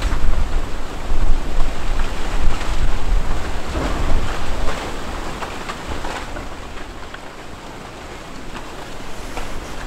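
Deep rumbling of Etna's summit eruption, swelling and easing in waves, with a few faint crackles. It eases off in the second half and builds again near the end.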